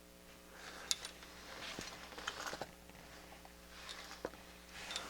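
Faint handling noise on a workbench: light clicks and brief rustles as a circuit board and small tools are moved about, over a steady low mains hum.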